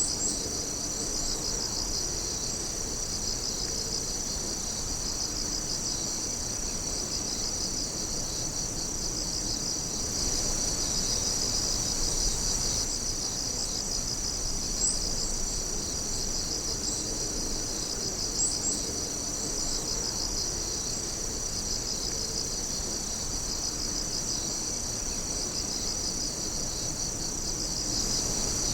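A steady night chorus of insects chirping and trilling, several high-pitched calls overlapping, one a fast pulsing trill. A few brief sharper chirps stand out about halfway through.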